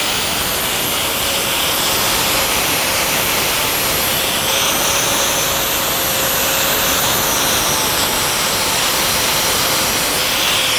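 Angle grinder with a flap disc grinding the mill scale off a hot-rolled steel rod: a steady motor whine at an even pitch under a continuous harsh rasp of abrasive on steel.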